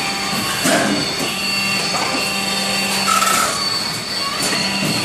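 Roll forming machine running, a steady hum with a thin high whine over it and a few sharp clacks spaced a second or so apart.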